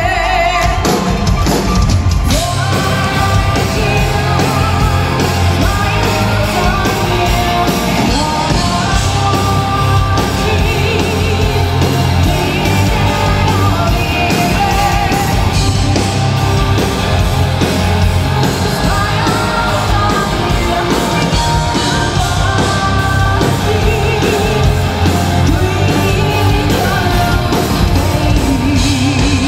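Loud live symphonic metal band: a woman sings the lead over electric guitar and a pounding drum kit.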